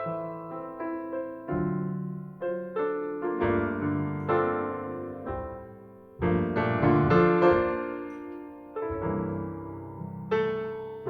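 Solo jazz piano playing a slow ballad passage of struck chords and melody notes that ring and fade. It drops to a soft spot about six seconds in, then comes back with a loud chord.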